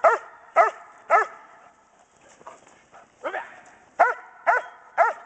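German shepherd barking at the helper in a Schutzhund bark-and-hold exercise, holding him in place with barks rather than biting. Three sharp barks about half a second apart, a pause of about two seconds, then four more.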